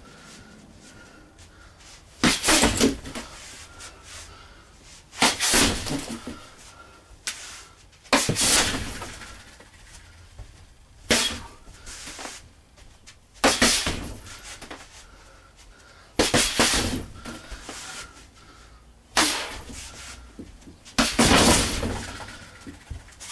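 Bare fists and palms striking a heavy punching bag in short flurries of a few blows each, about every three seconds.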